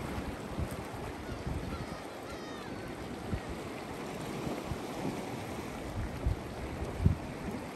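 Small waves washing and lapping over rocks along a rocky seashore, with wind gusting on the microphone in low thumps.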